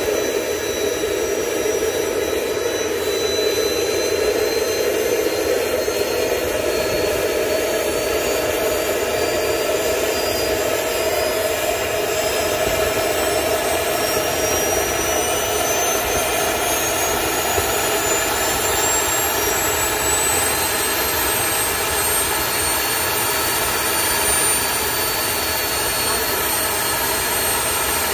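Kingtech K180 gas turbine jet engine (18 kg thrust) running: a loud, steady rush with a high turbine whine that climbs slowly in pitch throughout as the engine speeds up.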